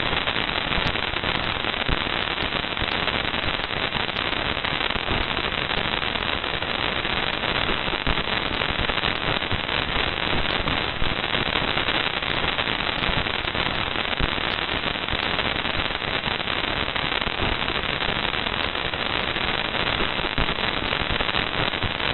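Spacecraft data recording turned into sound, of microscopic dust grains striking a solar probe at very high speed: a dense, steady crackle like old TV static, made of hundreds of tiny impacts.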